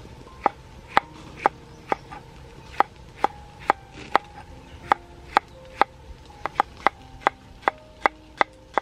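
A kitchen knife slicing green tomatoes on a wooden chopping board. The blade knocks sharply against the wood about twice a second, a little quicker near the end.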